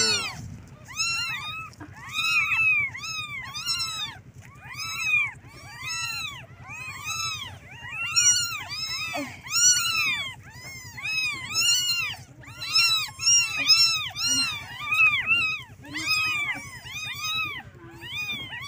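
Several young kittens mewing over and over, short high-pitched cries that rise and fall, several a second and often overlapping: kittens calling their mother to nurse. A low steady hum lies underneath.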